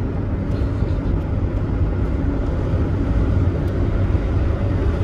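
Wind rushing in through an open car window over the road noise of the moving car: a steady, loud, low rumble.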